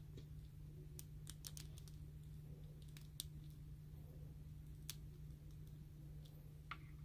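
Faint clicks of hard plastic action-figure parts being handled and pegged together: a quick cluster about a second in, then a few single clicks, over a steady low hum.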